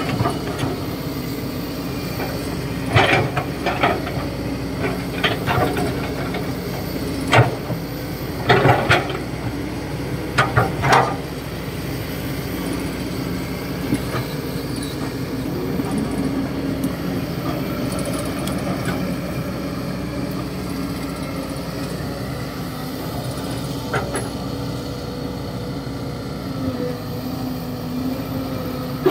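Kobelco SK200-8 hydraulic excavator's diesel engine running steadily as it digs, with a run of sharp clanks and scrapes from the bucket working the dirt in the first half.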